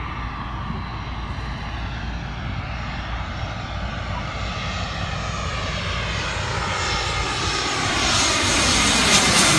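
Airliner on its landing approach, its engine noise growing steadily louder as it comes closer and reaching its loudest near the end.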